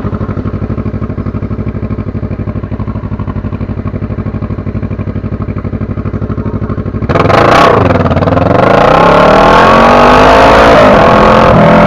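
Motorcycle engine idling with a steady, even pulse. About seven seconds in it switches abruptly to a louder stretch of the engine running under acceleration, its pitch rising and falling, over a steady hiss.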